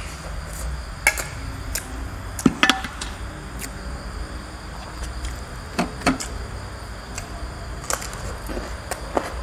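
Tableware sounds of a meal: a metal spoon clinking and scraping on a ceramic plate and bowls, with sharp clicks and knocks at irregular moments, the loudest about two and a half seconds in, over a steady low hum.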